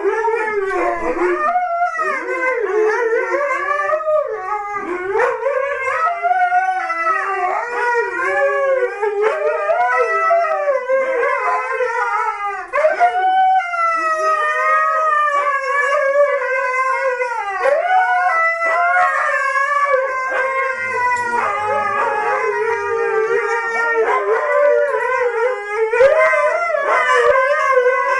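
Several husky sled dogs howling together in greeting, their overlapping voices wavering up and down in pitch without a break.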